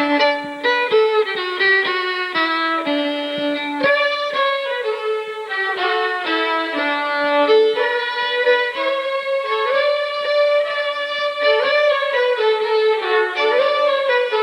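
Fiddles playing a lively Cape Breton fiddle tune in quick notes over a sustained lower note. The tune starts abruptly at the beginning.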